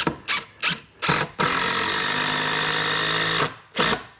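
Power drill driving a long screw through the door jamb into the framing: a few short trigger bursts, then a steady run of about two seconds, then more short bursts.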